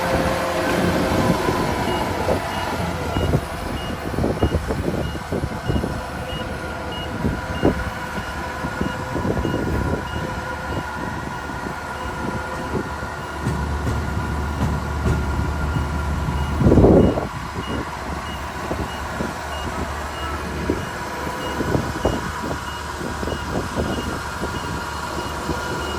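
Kubota combine harvester running steadily, with rattling and knocking from the machine and a repeating short electronic beep about twice a second. A loud burst of noise comes about seventeen seconds in.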